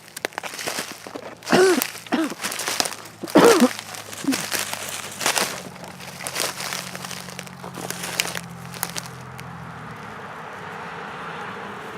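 Footsteps crunching and crackling through dry forest litter in irregular steps. Two short pitched calls that rise and fall come about one and a half and three and a half seconds in, the second one the loudest.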